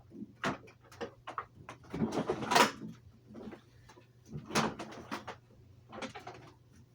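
Scattered clicks and knocks with a short scrape about two seconds in, as of a hard-bodied upright vacuum cleaner being handled with its motor off.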